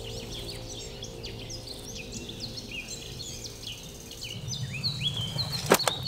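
Small birds chirping over and over, many short falling chirps. From about four seconds in comes a low rustling, and near the end a single sharp knock.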